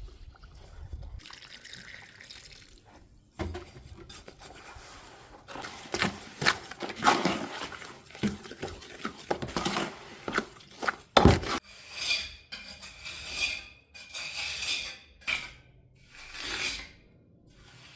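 Wet skim-coat plaster being mixed with water and worked with a tool in a bucket: irregular sloshing and stirring, then sharper scrapes of metal against the bucket in the second half.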